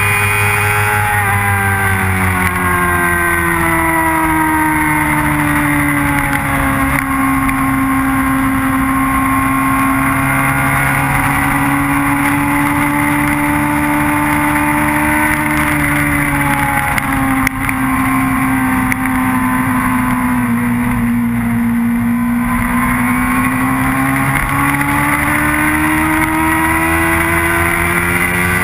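Motorcycle engine heard from a camera mounted on the bike, over steady wind rush. The engine note falls over the first few seconds as the bike slows, holds fairly low through the corners, and climbs again near the end as the bike accelerates.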